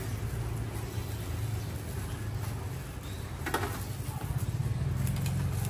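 Street-stall ambience: a steady low rumble, like engine or burner noise, with a short clink about three and a half seconds in and the rumble swelling slightly near the end.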